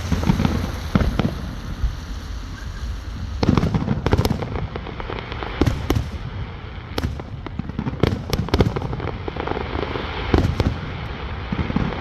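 Fireworks going off: a run of sharp bangs and cracks at irregular intervals over a continuous low rumble.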